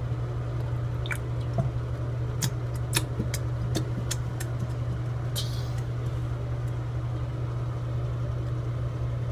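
A plastic glue bottle squeezed upside down over a bathroom sink, emptying its glue into the drain: a scatter of soft clicks and squishes in the first half, over a steady low hum.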